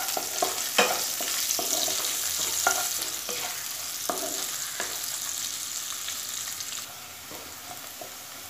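Sliced onion and whole spices sizzling in hot oil in a kadai, with a spatula stirring and scraping against the pan in irregular clicks and knocks. The sizzle eases noticeably about seven seconds in.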